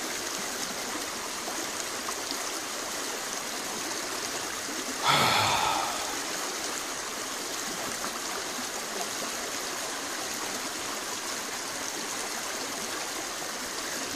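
Small rocky stream rushing and splashing steadily over stones, with a brief louder rush of noise about five seconds in lasting about a second.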